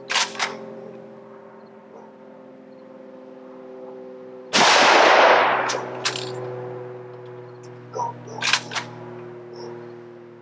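A single shot from a Sedgley-customized Krag-Jorgensen rifle in .30-40 Krag about halfway through, a sharp blast with an echo trailing off over about a second. Short metallic clicks at the start and again near the end are the bolt action being worked to eject and chamber a round.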